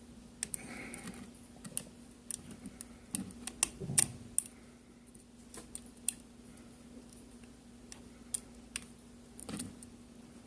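Lock pick and tension wrench working the pins of a Sargent five-pin rim cylinder during single-pin picking: irregular light clicks and ticks, more frequent in the first half, over a faint steady hum.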